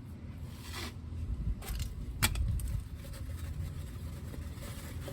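Oil filter wrench being worked on a car's oil filter: two short metallic clicks, the second louder, over a low steady rumble.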